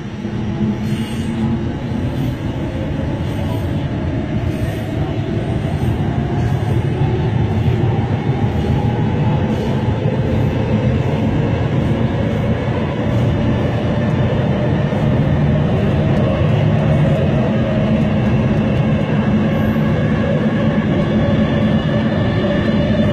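NFTA Metro Rail light-rail car running through the subway tunnel, heard from inside the car. Under the steady rumble of the wheels on the rails, a whine climbs in pitch and the sound grows louder over the first several seconds as the train picks up speed.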